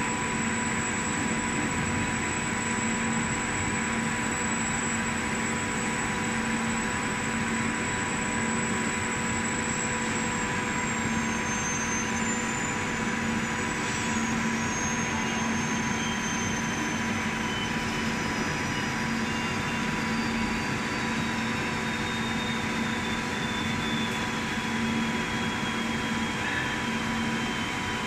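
CO2 laser marking and cutting machine running steadily: a constant fan-like whoosh with a steady hum, and a faint high whine that slowly falls in pitch over the second half.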